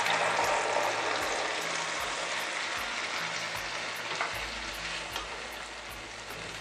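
Tomato purée sizzling as it is poured into hot oil in a kadhai, loudest at first and dying down steadily over the next few seconds as a wooden spatula stirs it in.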